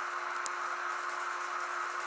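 HO-scale model electric locomotive running along the track: a steady motor whir and faint wheel rattle over a constant hum, with one small click about half a second in.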